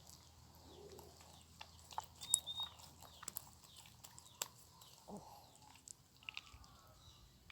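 Faint, scattered sticky clicks and squelches of glue-soaked slime being worked, with two short high chirps about two and a half seconds in.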